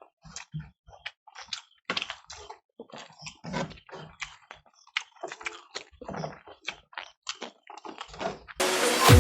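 Close-miked eating sounds: quick, irregular wet chewing and lip-smacking clicks as rice and curry are eaten. Electronic dance music cuts in suddenly near the end.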